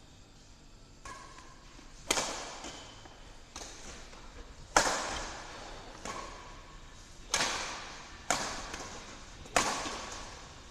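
Badminton rackets striking a shuttlecock in a doubles rally: about eight sharp hits one to two and a half seconds apart, some loud and some softer, each ringing out in the echo of a large hall.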